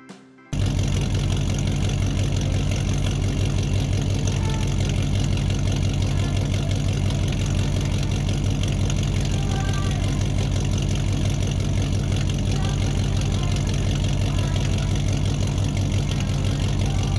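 An engine idling steadily, cutting in abruptly about half a second in, with a deep even hum and a fast, regular pulse.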